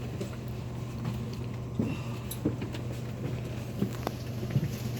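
Steady low hum of a bus engine heard from inside the cabin, with scattered small clicks and knocks.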